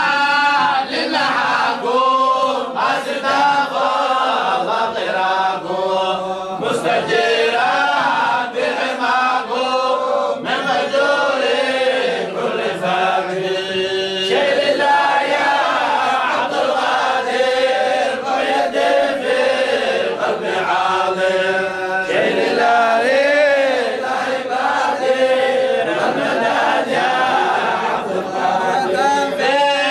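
Men's voices chanting a Sufi devotional qasida together through microphones, in a continuous, unbroken melody.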